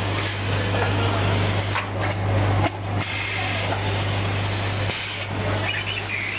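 Cat litter packing machine running: a steady low hum under irregular clattering and clicks. The hum cuts out briefly about two and a half seconds in and again near five seconds.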